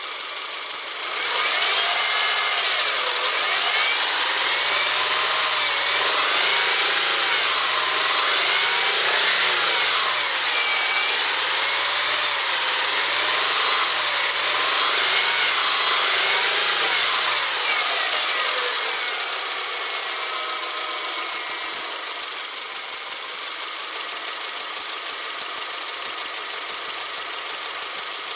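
Subaru EJ25 flat-four engine running. About a second in it is revved up and down several times, then it settles back to idle for the last third.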